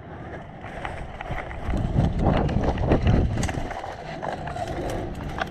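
Running footsteps with gear rattling, loudest about two to three and a half seconds in.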